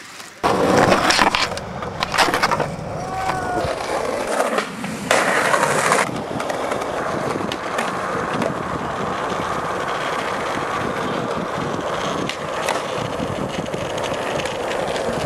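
Skateboard on concrete: wheels rolling rough, with sharp knocks of pops and landings in the first six seconds, then a steady rolling and grinding noise from the wheels and trucks.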